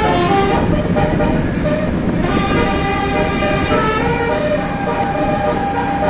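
A bus's telolet basuri musical air horn playing a tune of quickly changing notes, several at once, with longer held notes in the second half, over a steady low rumble.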